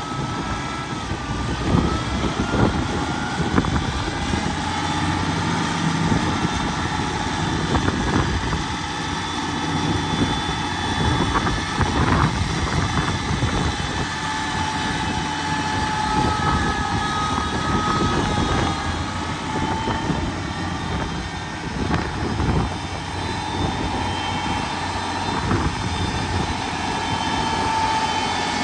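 1964 International Harvester 706 gasoline tractor's six-cylinder engine running as the tractor is driven around, its note and level rising and falling a little.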